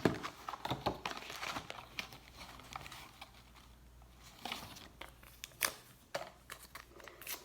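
A new box of alcohol swabs being torn and crinkled open by hand: a busy stretch of crackling and ripping over the first few seconds, then a few separate crinkles and clicks.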